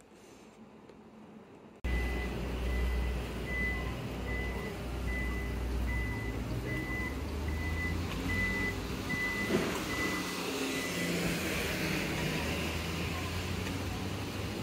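A steady run of short, high electronic warning beeps at one pitch over the low rumble of engines and traffic, starting suddenly about two seconds in and stopping a few seconds before the end.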